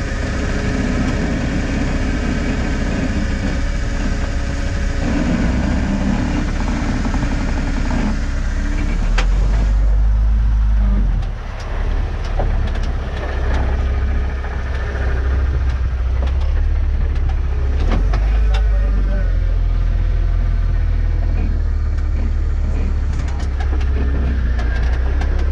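Off-road vehicle's engine running at low revs as it crawls slowly over slickrock, with a steady deep rumble. A few sharp clicks come through along the way.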